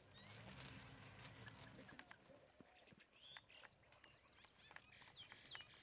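Faint forest ambience: scattered short bird chirps, some rising and some falling, with a few light clicks and a low hum in the first two seconds.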